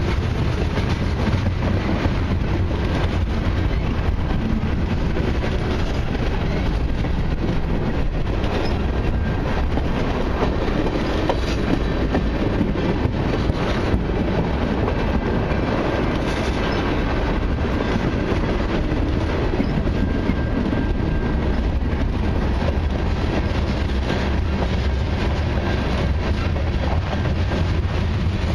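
Freight train cars (covered hoppers and tank cars) rolling past at close range: a steady rumble of steel wheels on rail with rapid clickety-clack from the wheels.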